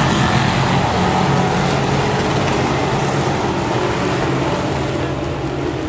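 A vehicle engine running at a steady, level pitch under a constant rush of noise, easing off slightly in loudness toward the end.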